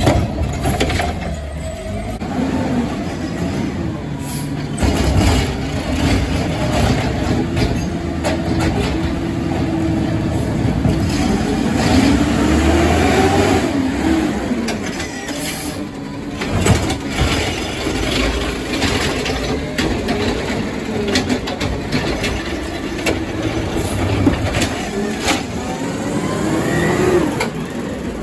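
Garbage trucks working residential carts: diesel engines running as hydraulic lifting arms whine up and down, tipping wheeled carts, with scattered knocks of carts and lids.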